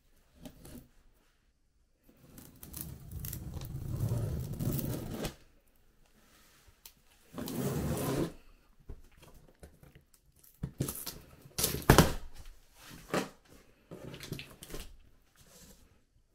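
Scissor blade drawn along the packing-tape seam of a cardboard box, slicing and tearing the tape in two long strokes. Then the cardboard flaps are pulled open with a run of sharp knocks and rustles, the loudest about twelve seconds in.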